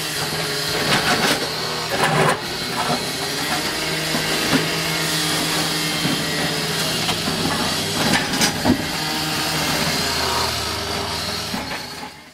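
Trackhoe's diesel engine running steadily, with a few sharp knocks about two seconds in and again near eight seconds. It fades out at the end.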